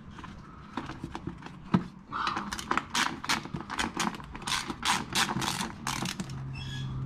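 Hand ratchet with a 5/16 socket clicking in quick strokes, about three clicks a second from about two seconds in, as a bolt on a Land Rover Discovery 3's underbody cover is undone. A low steady hum starts near the end.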